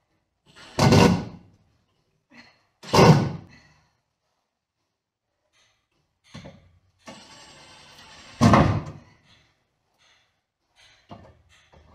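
Cordless drill driving screws into a wooden board in short bursts: three loud ones, about a second in, at three seconds and about eight and a half seconds in, the motor also running steadily for a couple of seconds around the last, with a few light knocks between.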